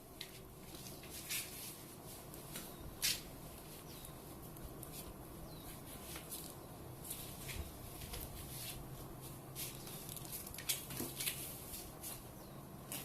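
Two house cats play-wrestling: scattered soft scuffles, rustles and paw taps, with a sharper tap about three seconds in and another near the end, over a faint steady low hum.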